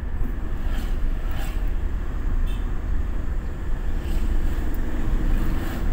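Steady low rumble of a car's engine and road noise heard from inside the cabin while it is being driven, with a few faint clicks.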